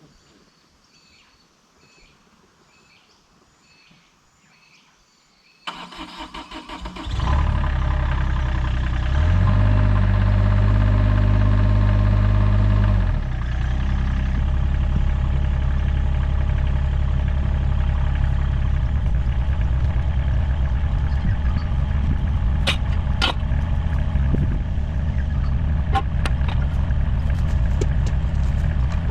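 An engine cranked and starting about six seconds in: it catches, runs faster for a few seconds, then drops to a steady idle. A few sharp clicks come over the running engine near the end.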